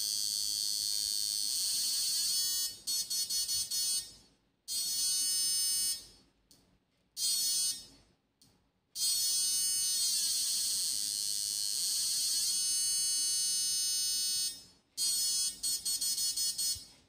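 A 6-MOSFET electrofishing inverter whining high-pitched with many overtones, cutting out and back in several times, with pulse mixing switched off and the power at its lowest setting. Near the start and again near the end it comes in quick pulses, about five a second, and in the middle its pitch dips and then climbs back.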